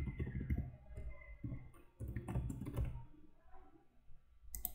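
Typing on a computer keyboard: a run of irregular key clicks, with one louder, sharper click near the end.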